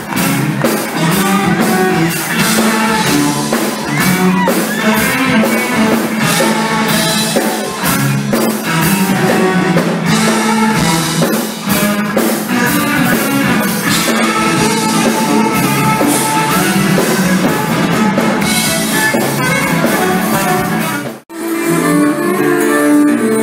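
Live rock band playing electric guitars and a drum kit, recorded from the audience. The sound drops out briefly about two seconds before the end, then the music carries on.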